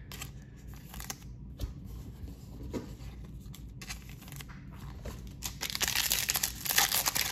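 Foil wrapper of a Panini Select football card pack being torn open and crinkled, loud over the last two seconds or so. Before that there are faint clicks and rustles of cards being handled.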